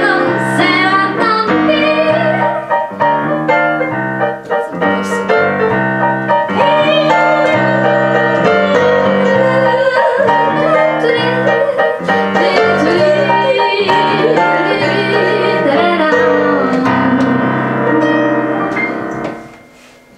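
A woman sings a jazz standard into a microphone, accompanied by chords on a digital piano. The song stops near the end.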